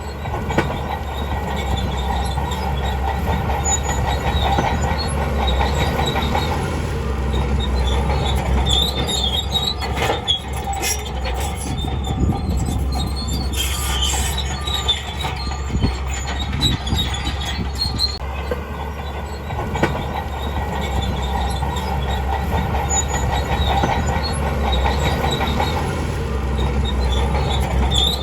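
Crawler bulldozer working: its diesel engine runs with a steady low rumble while the steel tracks squeal and clank.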